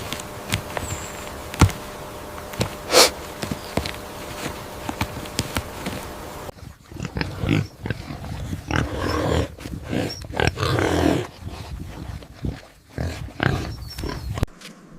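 Animal sounds in short, irregular noisy bursts. Before them comes a stretch of scattered clicks over a steady hiss, which gives way abruptly about six and a half seconds in.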